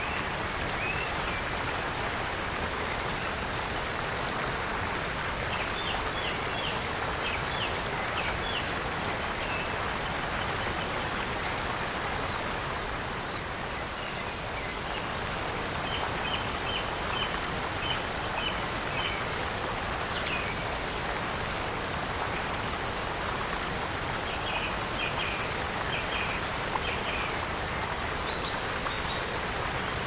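Waterfall spilling down a rock face: a steady rush of falling water. A bird calls three times in short runs of quick chirps.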